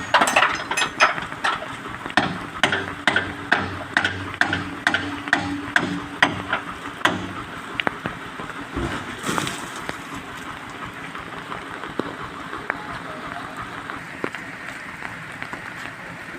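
A quick run of sharp knocks, about two to three a second, for the first seven seconds or so, then only an occasional knock, over a steady hiss of rain.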